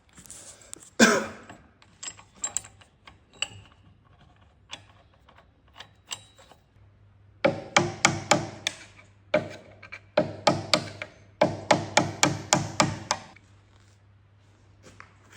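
A hammer striking steel: one heavy ringing blow about a second in, then three bursts of quick, evenly spaced ringing taps, about five a second, driving a tight bush into the boom's pin bore.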